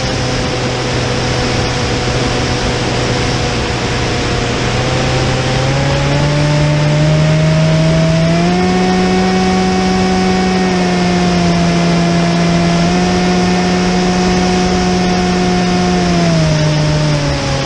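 Onboard sound of a radio-controlled model aeroplane's motor and propeller, a steady pitched hum under constant wind noise on the microphone. The pitch rises in steps a few seconds in as the throttle opens, holds, and drops back near the end.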